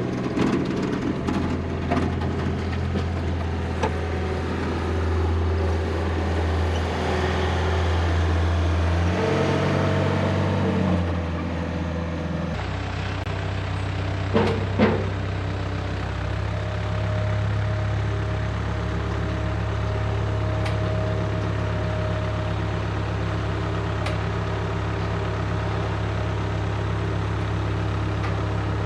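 Skid steer engine running under load while towing a gooseneck trailer on a fork-mounted hitch, its engine speed changing about a third of the way in and again shortly after. Two sharp knocks about halfway through.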